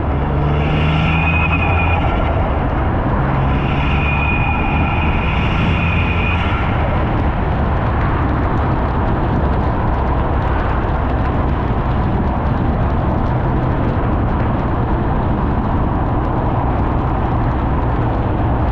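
Ford Fiesta ST180's 1.6-litre turbocharged engine with an upgraded hybrid turbo under way. In the first seven seconds it is pulled in three stretches, each with a high turbo whistle. After that it settles into a steady drone with road noise.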